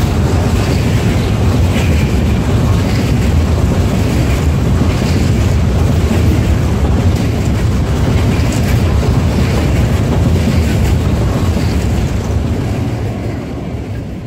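A long train of hopper wagons passing close by at speed: a steady heavy rumble of wheels on rail with regular clicks over the rail joints. Near the end a diesel locomotive at the tail of the train goes past and the sound starts to fade.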